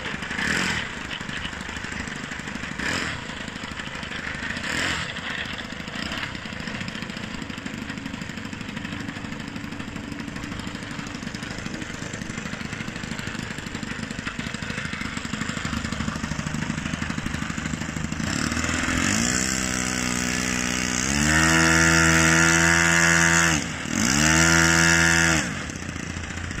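Saito four-stroke model-aircraft engine idling steadily on the ground. About 19 s in it is throttled up to a high, steady run, dips briefly and rises again, then drops back to idle near the end: a throttle run-up before take-off.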